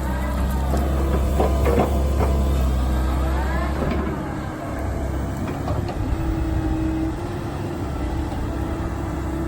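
Komatsu PC130 excavator's diesel engine running with a steady low hum that eases off for a couple of seconds midway. Rising and falling whines from the hydraulics come over it as the arm works, with a few short knocks.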